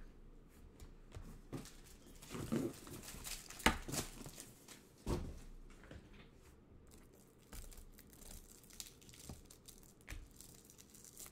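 Football trading card packs being torn open, their wrappers crinkling, with irregular light snaps and rustles as the cards are handled.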